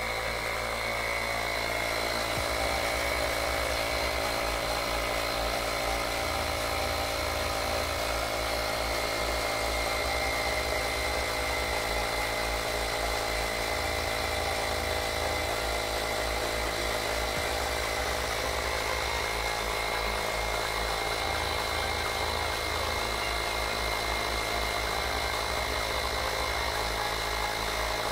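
Woscher 802D 12 V portable tyre inflator running steadily, its electric compressor pumping air into a car tyre: a steady high whine over a dense mechanical hum.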